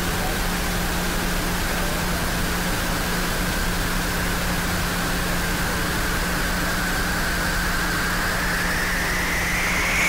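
Steady hiss of static-like noise over a low hum, with a faint whistling tone that rises in pitch over the last few seconds before it cuts off.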